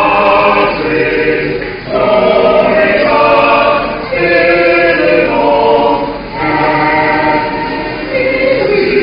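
Church choir singing, holding sustained notes in phrases of about two seconds each.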